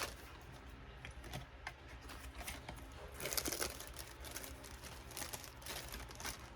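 Soft rustling and crinkling of paper packaging being handled, with a brief louder rustle about three seconds in.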